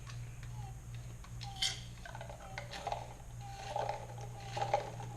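Hand-pumped piston of a Wacaco Minipresso NS portable espresso maker being worked stroke by stroke, giving light clicks and short squeaks that come more often from about halfway on, as it pressurises water through a coffee pod.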